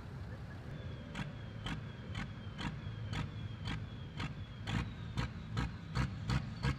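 Tractor diesel engine running steadily, with a train of sharp clicks that starts about a second in at about two a second and quickens to about three a second.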